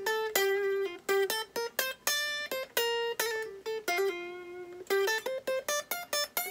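Clean electric guitar playing a single-note lead line in D minor, notes plucked one at a time, some held and ringing, then a quicker run of short notes in the second half.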